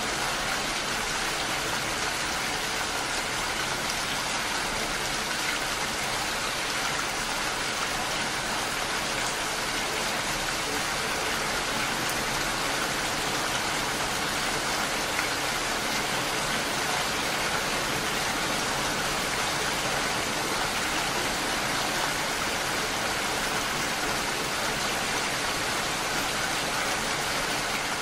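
Steady rainfall, an even hiss that holds the same throughout.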